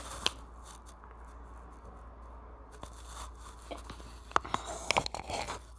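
Light handling noises: a sharp click just after the start, then a quiet stretch, then a cluster of small clicks and knocks between about four and five and a half seconds in.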